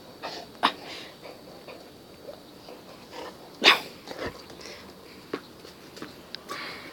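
A Saint Bernard making a few short, scattered sounds while playing with a ball, the loudest a sharp one about halfway through.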